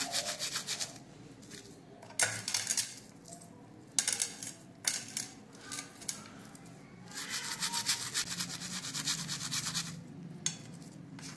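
Brush scrubbing a tarnished silver anklet in a soapy detergent cleaning solution: rapid short scrubbing strokes in spells, with brief pauses about a second in and near the end.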